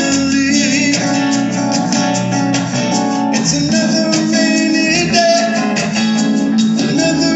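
Live band music: an acoustic guitar strumming steadily with a keyboard, under a sung melody.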